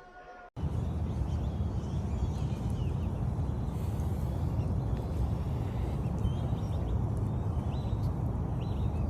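Outdoor field recording: a steady low rumble with a few faint, short high chirps in the middle.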